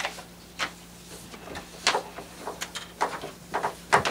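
Papers being handled on a table: a series of short, separate rustles and light knocks, about a dozen in the space of four seconds.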